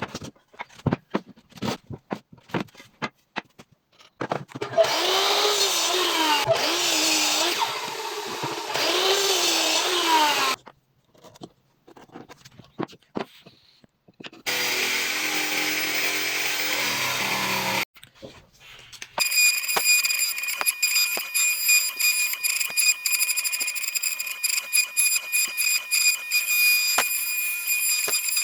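Woodworking power tools heard in separate stretches. First come scattered taps and clicks. About five seconds in, a power tool runs with its pitch wavering under changing load. Later a tool runs steadily, and from about two-thirds of the way in there is a steady high whine with rapid ticking.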